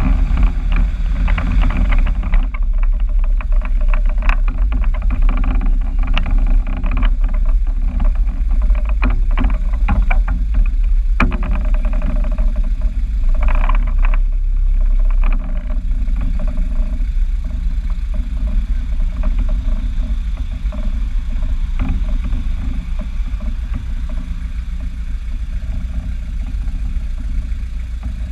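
Car engine and exhaust running with a deep, steady rumble, busier and louder for the first half, then easing slightly after about fifteen seconds.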